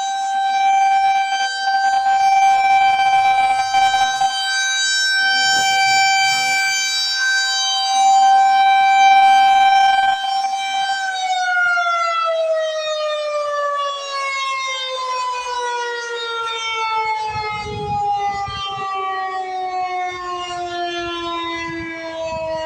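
Federal Signal 2001-SRNB rotating electromechanical siren sounding its steady alert tone, swelling and fading in loudness, then winding down about halfway through, its pitch falling slowly and steadily.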